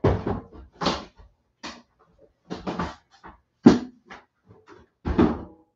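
A door being opened and shut: a run of sharp knocks and bangs of the door and its latch, five or so about a second apart, the loudest a little past the middle.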